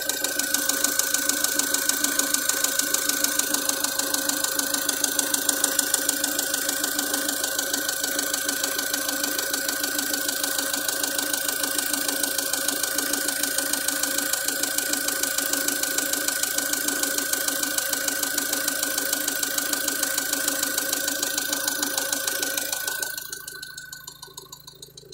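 Opel Vivaro's 1.9 dCi F9Q four-cylinder diesel idling fully warmed up with a rapid, even knock. The sound drops much quieter for a moment near the end.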